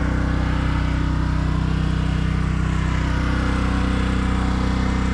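Small gasoline engine of a pressure washer running steadily at a constant speed.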